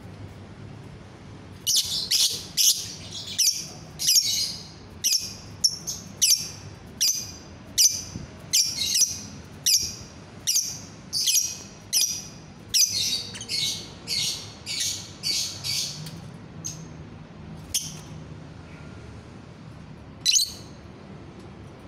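Caged lovebird chattering in a long run of shrill, high-pitched calls, about two a second, the repeated 'ngekek' chatter that Indonesian lovebird keepers prize. It starts about two seconds in and thins to a few single calls near the end.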